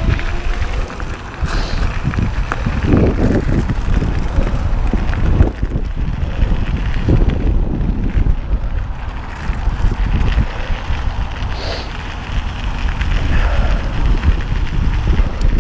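Wind buffeting the camera microphone while an electric mountain bike rolls fast over dirt and gravel, with tyre crunch and rattling knocks from the bike throughout.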